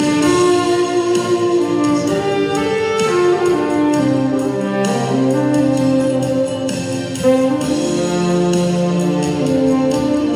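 Instrumental music: a melody of long held notes stepping from pitch to pitch over a lower accompaniment.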